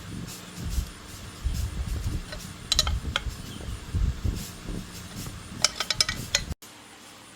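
Metal tools and motorbike engine parts clinking and knocking as they are handled, with dull thumps between sharp clinks and a quick run of clinks near the end, then the sound cuts off abruptly to quiet room tone.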